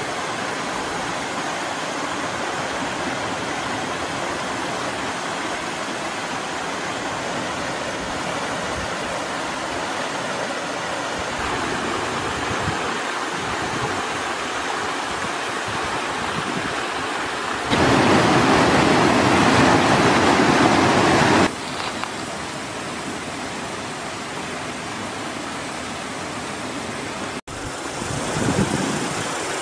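Steady rushing of a stream's flowing water, with a louder stretch of rushing for a few seconds past the middle and a brief cut-out near the end.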